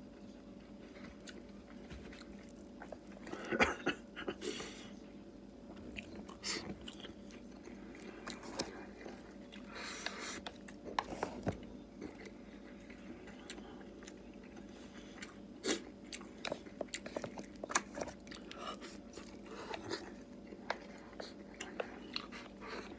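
A person eating rice with chopsticks from a bowl: chewing and other mouth sounds close to the microphone, with scattered small clicks and taps, a few louder ones about three and a half seconds in.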